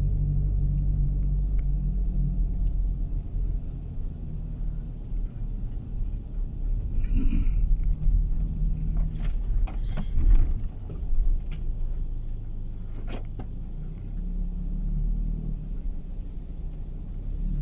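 Car engine and road rumble heard from inside the cabin as the car drives slowly, the engine note easing and picking up again. A few light clicks and knocks come about halfway through.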